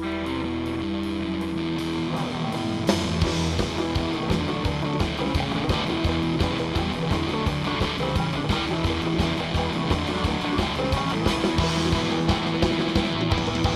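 Live rock band playing an instrumental jam: electric guitars and bass over held notes, then drums and percussion come in about three seconds in with a steady beat.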